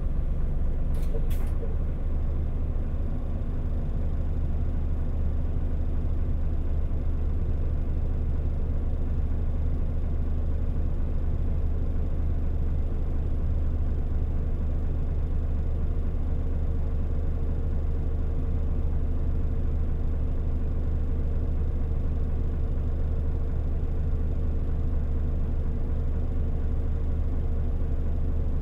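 Cabin sound of a Mitsubishi Fuso New Aerostar PJ-MP37JK city bus: its diesel engine and running gear going steadily with a deep low drone. Two brief clicks about a second in.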